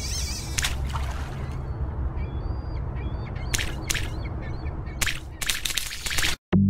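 Sound effects of an animated logo sting: a steady low rumble under a rising whoosh at the start, with faint high chirps in the middle and a series of sharp hits toward the end. It all cuts off suddenly near the end.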